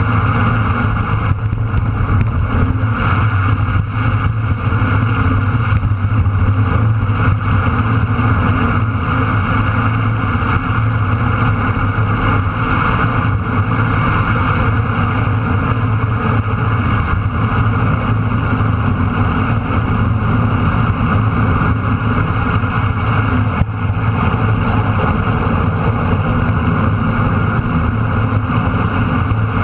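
Motorcycle engine running at a steady cruise with wind rushing past, heard from a camera mounted low on the bike.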